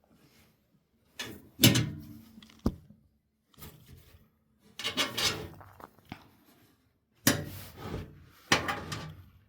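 Hard drive parts being worked on by hand with a tool: several separate bursts of scraping and knocking, with a sharp click about two and a half seconds in.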